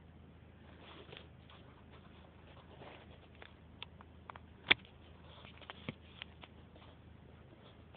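Faint, irregular clicks and taps with one sharp click a little past halfway, over a low steady background: handling noise from a phone held inside a car.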